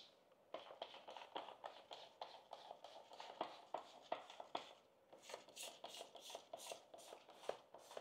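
Faint back-and-forth rubbing by hand on the extruded-aluminum slider of a table saw, at about three quick strokes a second, scrubbing paint off with a car-cleaning product.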